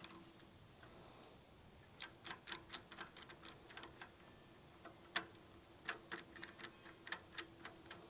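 Light, sharp clicks in two irregular runs, a few a second, over a faint steady hum.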